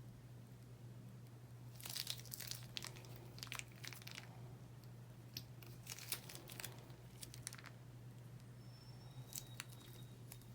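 Slime being worked by hand, giving two spells of crackling, popping clicks, the first about two seconds in and the second around six seconds in, over a faint steady low hum.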